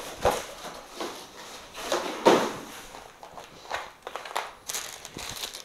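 Packing material and a plastic-wrapped antenna tube being handled on a hard floor: irregular rustling and scraping with a few sharper bumps.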